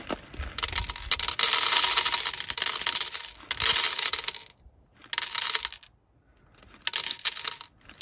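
Whole roasted coffee beans poured from a paper bag into a clear plastic tray on a digital scale, clattering as they land and pile up while a dose is weighed out. The pour comes in a long run of about four seconds, then two short runs with pauses between them.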